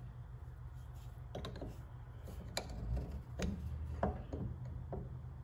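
About half a dozen light metal clicks and clinks from the parts of a quick-change tool post being fitted and tried on a mini lathe, over a low steady hum.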